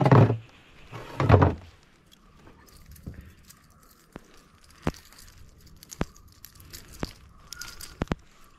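Handling noise: two loud rustling scrapes near the start, then a run of separate sharp clicks about a second apart.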